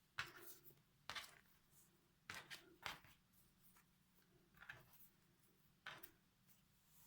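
Faint handling noise: about six short rustles and scrapes as soft rubbery craft stickers and their packaging are handled, with quiet room tone between them.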